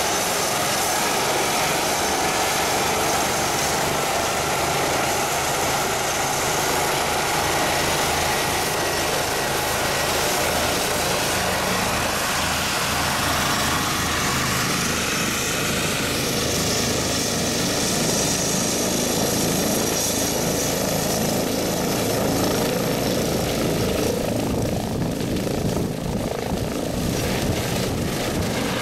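Medical helicopter's turbine engine and main rotor running, a loud continuous rush with a fast low pulsing from the blades.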